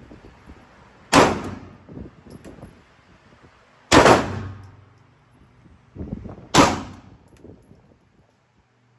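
Draco 9S 9mm AK-pattern pistol fired three times in slow single shots, about two and a half to three seconds apart, each shot ringing out briefly.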